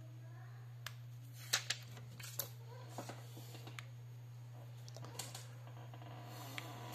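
Light clicks and taps as fingers handle the plastic case and keypad of an IKU V100 feature phone, the loudest pair about a second and a half in, with scattered smaller clicks later, over a steady low hum.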